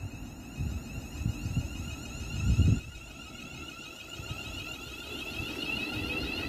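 Class 360 Siemens Desiro electric multiple unit pulling away, its traction equipment giving a high whine of several tones that keep sliding upward and grow louder. Low rumbling gusts come through underneath, strongest about two and a half seconds in.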